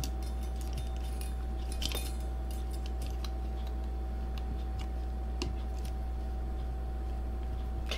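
Small scattered clicks and ticks of a tiny screwdriver and screws being worked into an action camera's plastic case, over a steady low hum.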